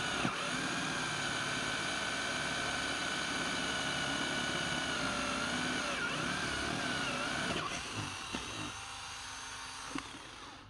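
12 V cordless drill, run from a mains-powered 12 V supply instead of its battery, spinning a bit into a wooden board with a steady high whine from its motor and gearbox. The pitch wavers as the bit bites, then about eight seconds in the whine drops away to a quieter, lower hum.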